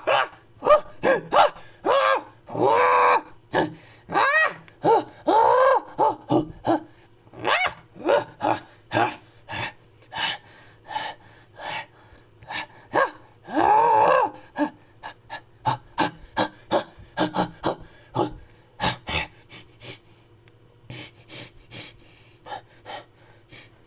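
Ape-man creature sound effects made with a human voice: a rapid string of short grunts, gasps and hoot-like calls, some of them longer and rising then falling. The calls thin out and grow quieter near the end.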